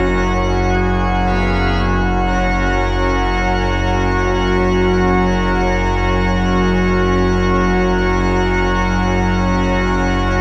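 Organ playing full, sustained chords over a deep held bass, the chords shifting slowly.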